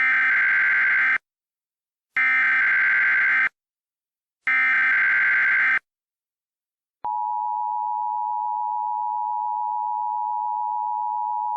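Emergency Alert System SAME header: three short bursts of screeching data tones, each just over a second long. After a pause, a steady, single-pitched attention signal tone starts about seven seconds in and holds, warning that an alert message follows.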